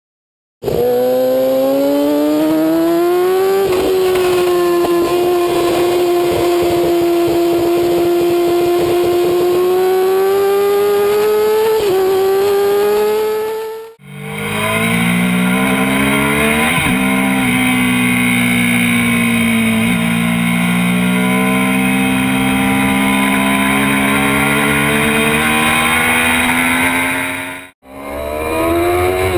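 Sport motorcycle engines with aftermarket exhausts at high revs on track, in separate clips joined by abrupt cuts. The first clip's note climbs in pitch, holds high and dips at gear changes. After a cut about halfway, a lower, rougher note rises and falls, and a third clip starts near the end.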